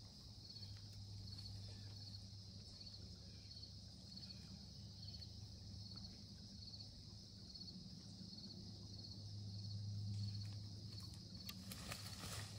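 Faint, steady insect chorus pulsing evenly at a high pitch, over a low drone that swells about ten seconds in. A few sharp clicks and rustles near the end.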